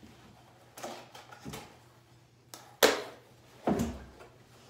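A few sharp knocks and clinks of cups and a blender jar against each other and the table while smoothie is poured, the loudest about three seconds in.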